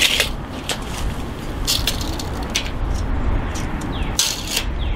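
Handling noise of a steel tape measure being stretched out along a frame: a few short rustles and scrapes over a steady low rumble.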